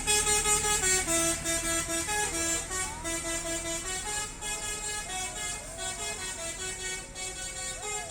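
Bus telolet horn playing a quick tune: several horn notes sounded in turn, each a short held tone stepping up and down in pitch, loudest at the start and a little softer later.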